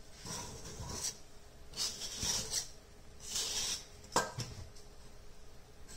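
Kitchenware being handled: three short rasping scrapes, then a sharp knock about four seconds in.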